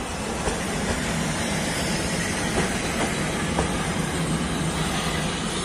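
EP2K electric locomotive running past at close range: a steady rumble of its running gear and motors, with a few sharp clicks as the wheels cross the track.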